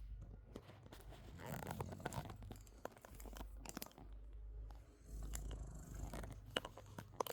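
A Frenchton, a French bulldog and Boston terrier cross, snoring: two long snoring breaths about four seconds apart, with scattered small clicks and rustles.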